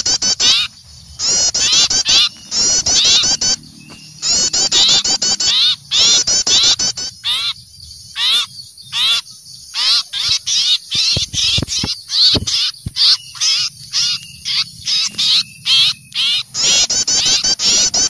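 A flock of small songbirds giving rapid, scolding alarm chirps, the mobbing chatter of small birds alarmed by an owl, used as a bird-trapping lure call. The chirps come in dense runs broken by short pauses.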